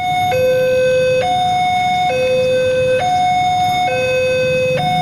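Railway level-crossing warning signal sounding its alternating high-low two-tone alarm, each tone held a little under a second, while the crossing barrier lowers ahead of an approaching train. Low traffic hum underneath.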